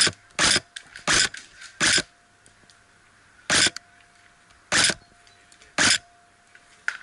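Airsoft AK-pattern rifle firing single shots: four in quick succession, about two a second, then three more spaced about a second apart.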